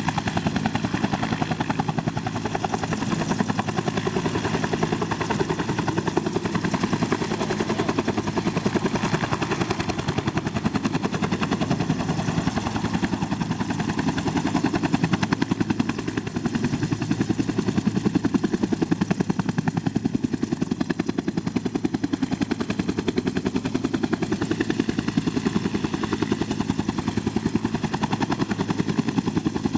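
Makita TW001G 40V 3/4-inch high-torque impact wrench hammering steadily and without a break, a fast rattling stream of impacts.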